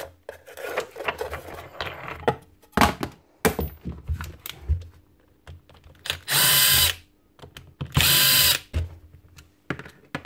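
Power drill running in two short bursts of under a second each, amid clicks and knocks of small metal parts being handled.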